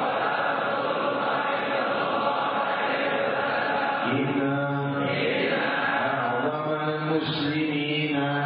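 Islamic devotional chanting: a man's voice through a microphone holding long, drawn-out notes, with many voices of the congregation chanting along.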